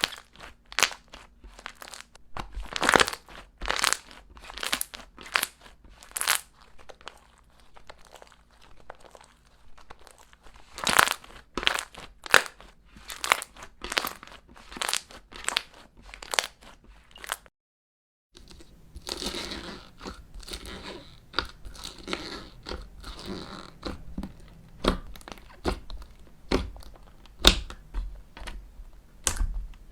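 Slime being pressed and squeezed by hand, giving a dense run of sharp crackles and pops. A brief silent break comes a little past halfway, after which the crackling goes on over a softer squishing sound.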